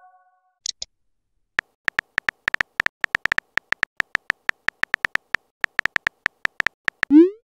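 Phone keyboard tap sounds: a rapid, irregular run of about thirty short clicks as a text message is typed out. Just before the end comes a short rising swoop, the loudest sound here, the kind a messaging app plays when a message is sent.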